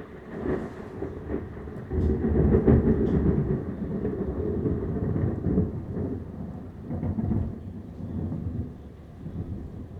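Thunder: a loud roll breaks in about two seconds in and rumbles on in uneven swells for several seconds before dying down.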